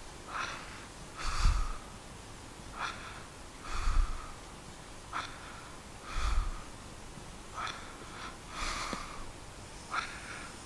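A man's breathing, picked up close to the microphone: slow, even breaths in and out, one full breath about every two and a half seconds, the out-breaths with a low puff on the mic.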